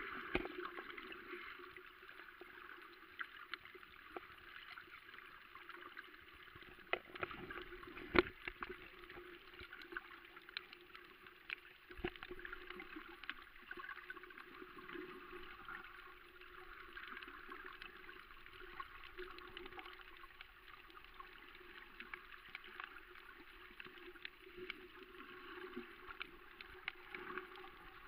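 Faint underwater ambience heard by a submerged camera: a steady muffled hiss with a scattered crackle of short clicks, one sharper click about eight seconds in.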